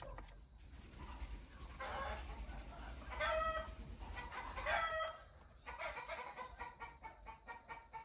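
A chicken calling, a few short calls in the middle, over light clicks and taps of plastic parts being fitted at the steering wheel hub.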